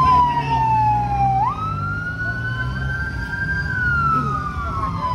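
Fire-brigade vehicle siren wailing in a slow cycle: the tone slides down, jumps sharply back up about a second and a half in, climbs and holds, then slides down again. A low engine rumble runs underneath.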